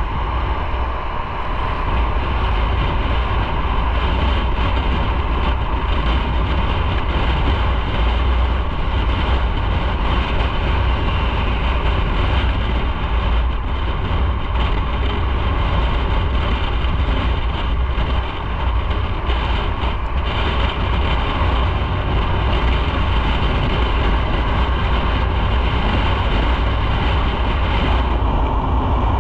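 Motorcycle riding at a steady speed: engine and wind noise on the bike-mounted microphone, a loud even rumble that stays steady.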